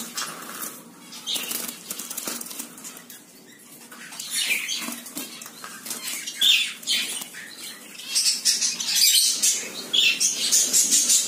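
Bengalese finch fluttering its wings inside a small wire cage as a hand reaches in to catch it, in irregular bursts that grow busier in the second half.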